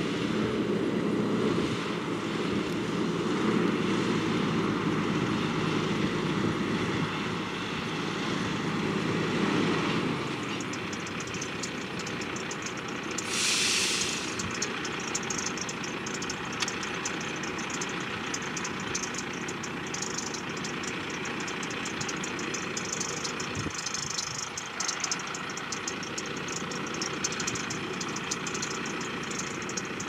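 2014 John Deere S650 combine running steadily while harvesting corn, its engine and machinery making a continuous drone. The lower part of the drone drops about ten seconds in, and a brief hiss comes a few seconds later.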